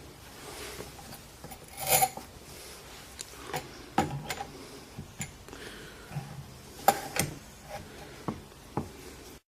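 A string of light clicks and knocks from hard parts being handled, with the sharpest knocks about two seconds in and near seven seconds.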